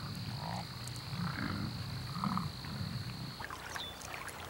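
American bison grunting: repeated low, guttural grunts about once a second. Near the end these give way to a few faint, short high peeps from mallard ducklings.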